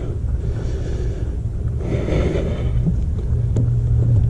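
Microfiber drying towel being pressed and wiped over a car's wet door panel, with a soft swish about two seconds in, over a steady low rumble.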